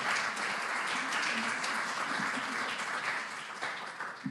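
Audience applauding: many hands clapping in a dense, steady patter that fades out near the end.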